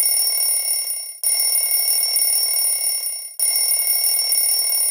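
A bell ringing in long bursts of about two seconds each, with short breaks between them.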